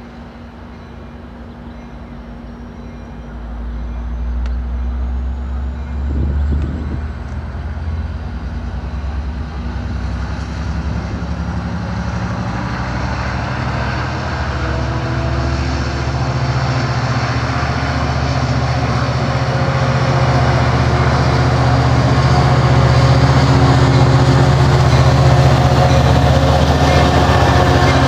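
Diesel locomotive of an approaching passenger train, its engine and rail noise growing steadily louder as it comes closer.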